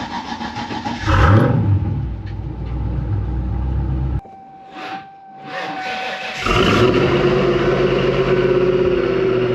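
Fox-body Mustang's 5.0 V8 engine running with a pulsing idle, then revving about a second in and settling into a steady low rumble. The sound cuts off abruptly near the middle, and a V8 is running loudly and steadily again from about two-thirds of the way through.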